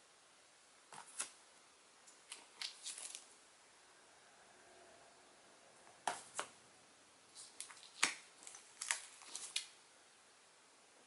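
Bagged and boarded comic books being picked up and laid down one by one: short crinkles and slaps of the plastic sleeves, coming in four or so quick clusters.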